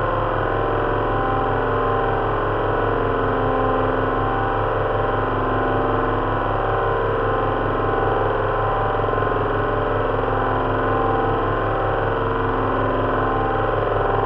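Simulated drone of four Rolls-Royce Merlin V12 aero engines running together, as heard from an Avro Lancaster's cockpit, built from engine-sound recordings played through loudspeakers. A fan heater's rush is mixed in to stand in for propeller noise. The drone holds steady and unchanging.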